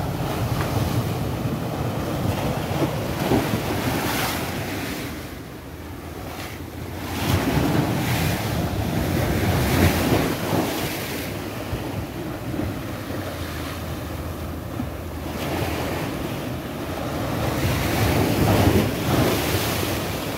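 Sea waves breaking and washing against a concrete seawall, the wash swelling and falling with each wave, loudest about eight to ten seconds in and again near the end. Wind buffets the microphone throughout.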